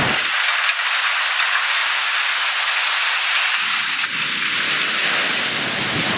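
Steady hiss of heavy storm rain driven by strong wind; about three and a half seconds in, a low rumble joins it and runs on.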